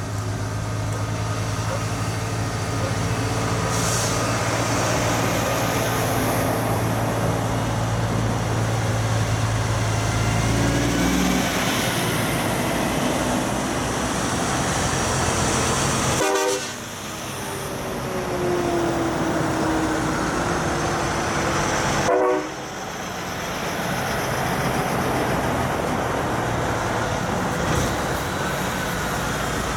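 Heavy diesel trucks driving past one after another, their engines giving a steady low drone for the first ten seconds or so. A truck air horn sounds partway through.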